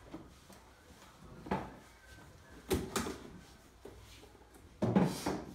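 Handling clunks: a small aluminium case being shut and lifted off a wooden table while chairs are shifted. Three knocks about a second and a half, three and five seconds in; the last is the loudest.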